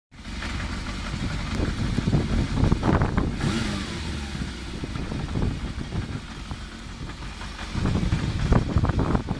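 Kawasaki Zephyr 750's air-cooled inline-four engine running, with the throttle blipped to rev it up a little past two seconds in and again near the end.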